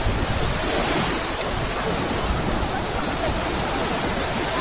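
Sea surf breaking and washing around the shallows, a steady rushing noise.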